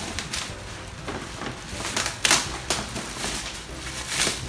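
Clear plastic wrapping rustling and crinkling in irregular bursts as a collapsible wire dog cage is handled, with a sharp knock about two seconds in.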